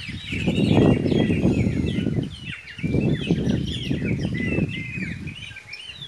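Many small birds chirping and singing in quick, overlapping calls throughout. Two long stretches of low rumbling noise over the birdsong are the loudest sound.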